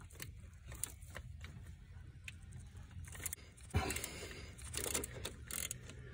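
Scattered clicks, scrapes and rattles of a hand and a socket working at the distributor hold-down in a truck's engine bay, with a sharp knock about four seconds in, over a low steady hum.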